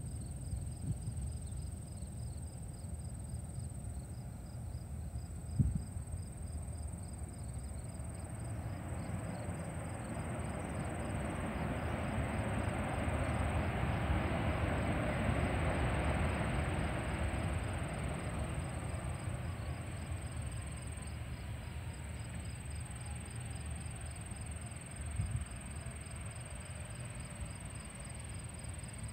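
Two-engine CFM56 jet of a Boeing 737-700 airliner heard from across the airfield: a broad roar swells as it rolls along the runway after landing, then fades with a slowly falling whine. Crickets or other insects chirp in a steady fast pulse throughout, and there is one brief thump about six seconds in.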